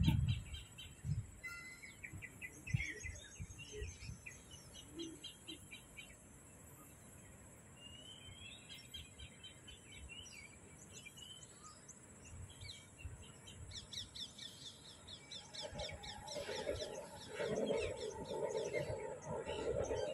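Several small birds chirping and trilling in short repeated phrases, with a lower-pitched sound growing in over the last few seconds.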